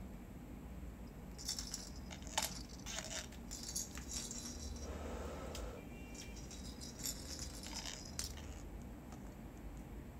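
Scattered light rattles and clicks over a low steady hum.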